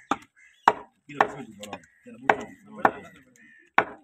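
Large butcher's knife chopping into beef joints, about six sharp, irregular strikes.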